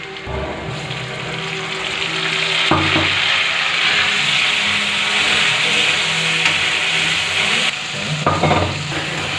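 Hot oil frying in a steel kadhai: a loud, steady sizzle that swells about three seconds in as chopped tomatoes and then whole pulses go into the pan and are stirred with a steel ladle.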